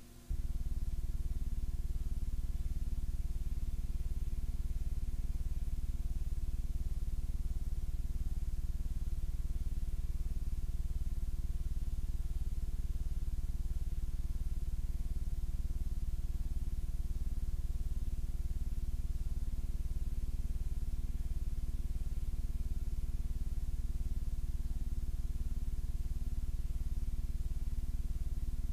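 Steady low electrical hum and buzz from the tape playback over a blank, black stretch of an old VHS tape. It switches on abruptly right at the start and holds unchanged.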